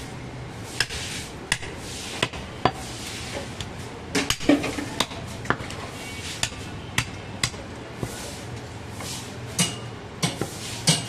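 A large butcher's knife chopping and cutting goat meat on a wooden log chopping block: sharp knocks at irregular intervals, about one or two a second, with a quick flurry of strikes about halfway through and softer scraping between them.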